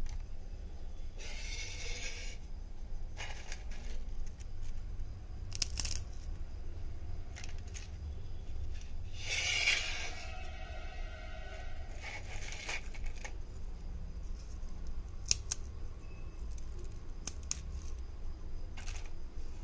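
Crisp, dry fried banana chips crackling and snapping as fingers crush and handle them on a plate, in several short bursts with scattered sharp clicks near the end. A steady low hum lies underneath.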